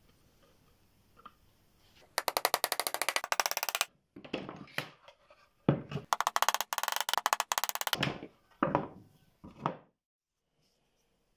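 Hammer driving small nails into the wooden slats and cleats of a pine box. Two fast runs of rapid, evenly spaced taps, each under two seconds, with a few single knocks between and after them.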